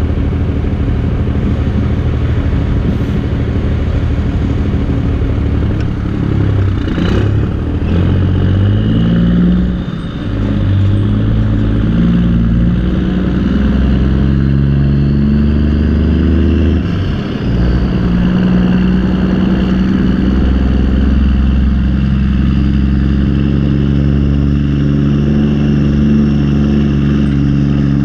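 Backhoe diesel engine running under load, its revs rising and falling as the digging controls are worked, with two short drops in revs.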